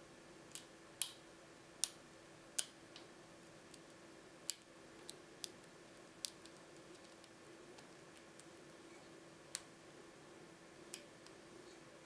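Sharp, irregular metallic clicks, about ten, from a hook pick working the pin stacks of a Métalux pin-tumbler cylinder held under a tension wrench. The loudest click comes about a second in.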